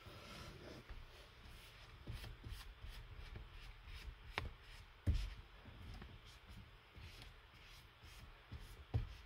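A microfiber cloth rubbing and wiping over a freshly applied touchscreen protector film, with light scattered handling taps. There are a few short louder thumps, at about four and five seconds in and again near the end.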